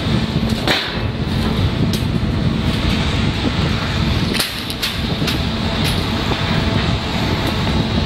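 Loud, steady low rumble with a constant low hum, broken by a few sharp clicks.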